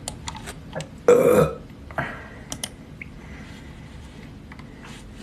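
A man's loud burp about a second in, lasting under half a second and trailing off, with a few sharp clicks scattered around it.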